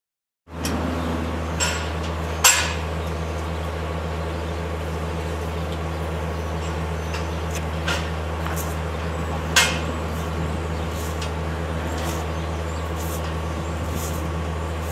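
Steady low machine hum with a few sharp metallic clanks and clicks, the loudest about two and a half seconds in.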